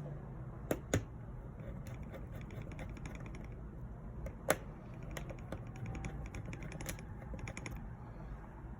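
Small repair tools clicking and tapping on the phone's parts while small internal pieces are fitted back in place: a few sharp clicks, the loudest about halfway through, and runs of light rapid ticks.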